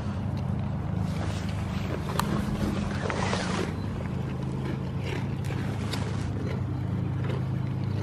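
A goat crunching animal crackers off the ground right by the microphone, short crisp crunches scattered through, over a steady low hum.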